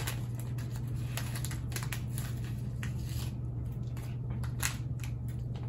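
Plastic candy wrappers crinkling in irregular small crackles and clicks as Takis lollipops are unwrapped and handled, over a steady low hum.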